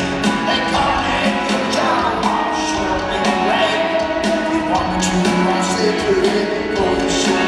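Live rock band playing a song on electric guitars, drums and fiddle, with a male lead vocal.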